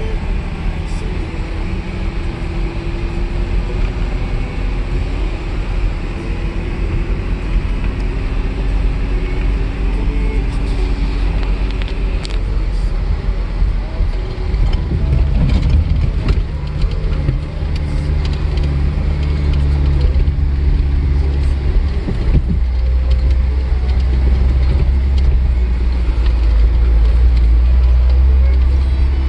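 Off-road vehicle engine running as it drives slowly along a dirt trail, a steady low drone with scattered knocks and rattles from bumps. About halfway through, the engine note turns lower and louder.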